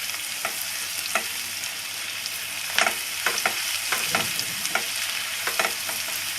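Chopped onion and garlic paste sizzling in hot mustard oil in a kadai, with a spatula stirring and scraping against the pan in irregular strokes.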